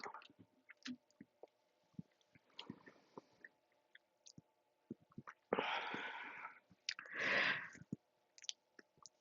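A person speed-drinking soda: quiet swallowing clicks from the gulps, with two heavy breaths out, each about a second long, just past the middle.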